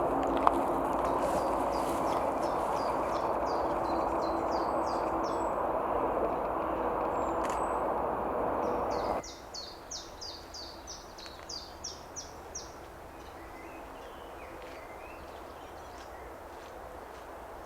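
Common chiffchaff singing its repeated 'chiff-chaff' song: a long string of short high notes, about two or three a second, with a short break partway through. Steady background noise underneath cuts out abruptly about nine seconds in, leaving the song over a quieter background.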